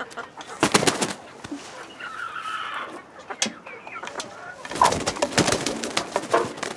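A hen clucking, with a drawn-out wavering call about two seconds in, amid bursts of rustling feathers and straw as she is set down on eggs in a wooden nesting box.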